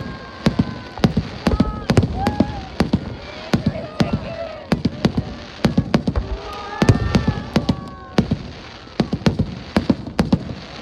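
Fireworks display: aerial shells bursting in quick succession, a steady barrage of sharp bangs and crackles, several a second, with rumbling echoes between them.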